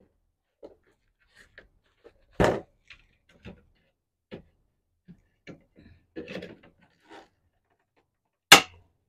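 Wire cutters snipping through the plastic tabs of a mesh grille: two sharp snaps, one about two and a half seconds in and a louder one near the end, with small clicks and handling sounds between.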